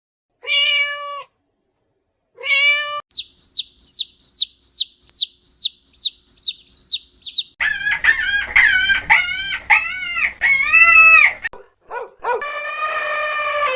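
A string of separate animal calls cut together: two short calls, then a run of about a dozen quick high chirps, then about nine arched calls, and one long call near the end.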